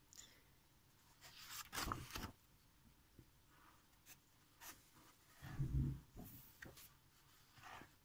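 Paper pages of a large book handled and turned by hand: a faint rustle and slide of paper about two seconds in, a dull thump a little past halfway, and light paper ticks and brushes.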